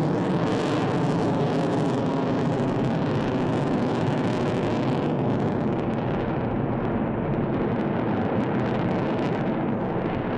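Jet roar of an F-22 Raptor's twin Pratt & Whitney F119 turbofans as the fighter flies past, a loud steady roar. Its high hiss fades through the second half as the jet draws away.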